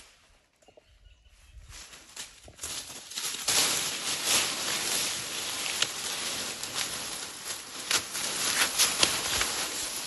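Leafy branches and dry stalks rustling and crackling under a baby elephant as it kneels and shuffles about in them. The rustling starts about two seconds in and soon becomes a dense, busy crackle.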